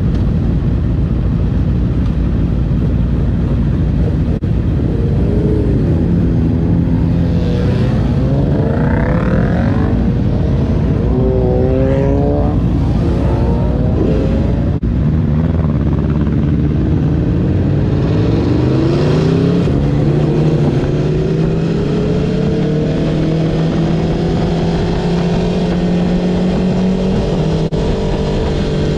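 Aprilia Tuono V4 motorcycle engine accelerating hard through several gears, its pitch climbing and dropping back at each shift, then pulling steadily with slowly rising pitch, over heavy wind and road noise.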